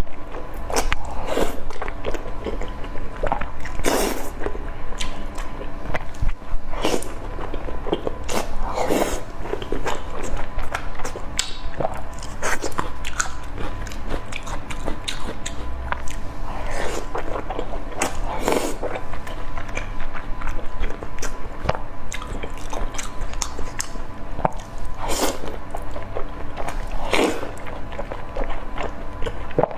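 Close-miked eating: bites and chewing of food at irregular intervals.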